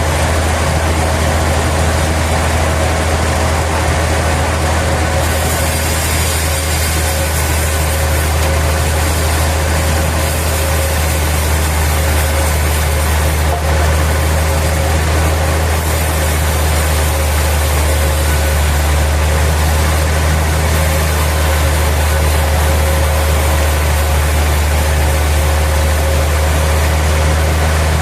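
Sawmill machinery running steadily: a deep engine-like hum with a steady mid tone, joined about five seconds in by a hiss in the high range.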